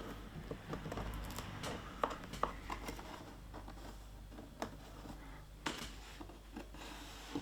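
Scattered light clicks, taps and rustles of hands handling parts and tools, a few sharper ticks among them, over a faint steady low hum.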